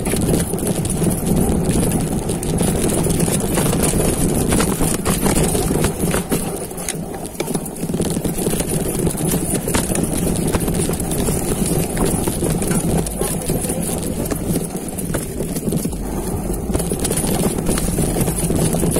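Mountain bike riding down a rough dirt trail: a continuous rumble with frequent rattles and knocks from the bike over the bumps.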